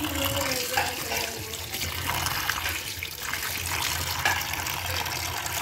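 Kitchen tap running a steady stream of water onto raw cut potato strips in a stainless steel colander in a steel sink, rinsing the fries so they come out crispy.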